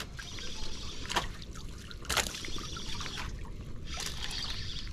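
Sea water lapping and trickling against the side of a small boat, in swells of hiss, with a few sharp clicks about a second, two seconds and four seconds in.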